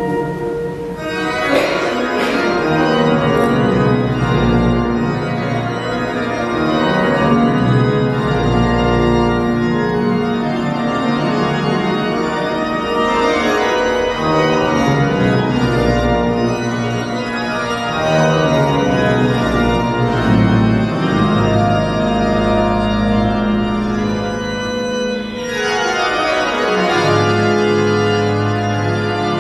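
Organ music played back through a multichannel array of Devialet Gold Phantom Opera de Paris loudspeakers: long held chords over deep bass notes, changing every few seconds.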